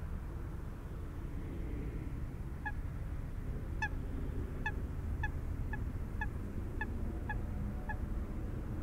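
A waterbird on a lake giving about nine short calls, a half to one second apart, starting about three seconds in, over a steady low rumble.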